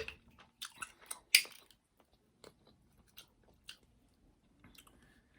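A person chewing and biting food: irregular wet clicks and crackles, busiest in the first couple of seconds with one sharper bite or crunch about a second and a half in, then sparser.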